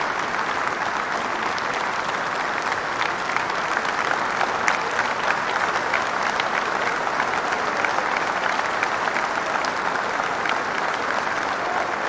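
Crowd applauding: steady, dense clapping at an even level, with a few single claps standing out, as an applause ambience loop.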